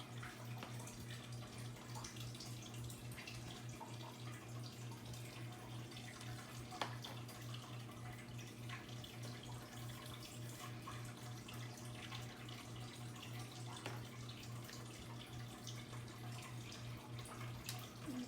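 Faint steady low hum with scattered light clicks and taps from Play-Doh and plastic tools being handled on a table, with one sharper tap about seven seconds in.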